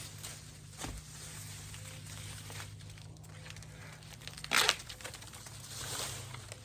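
Dry corn husks and leaves rustling and tearing as an ear of corn is peeled open by hand, with one short, loud tear a little past halfway.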